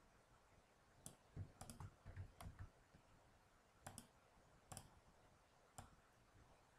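Faint, irregular clicks of a computer keyboard and mouse: keystrokes and button clicks while extrude shortcuts are pressed and new vertices are placed. There are about a dozen clicks, bunched from about one to two and a half seconds in, then single ones near four, five and six seconds.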